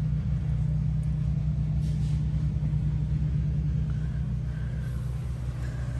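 Steady low rumble of an idling engine, with an even fine pulse.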